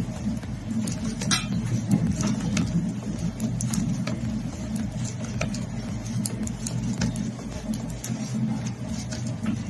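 Metal knitting needles clicking and tapping against each other in quick, irregular strokes as stitches are worked, over a steady low hum.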